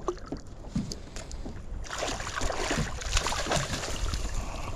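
Handling noise on a fishing kayak: scattered knocks and clicks over a low rumble, then from about two seconds in a steady rushing hiss.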